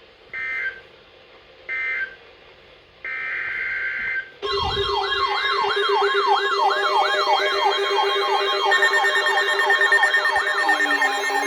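Short bursts of Emergency Alert System digital data tones, a buzzing warble, with two brief bursts about a second and a half apart, then a longer burst about three seconds in. From about four seconds in, several electronic sirens sweep rapidly up and down, layered over a steady tone.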